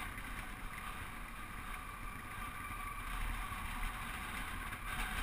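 Honda Africa Twin's parallel-twin engine running steadily at trail speed, with wind rushing over the microphone.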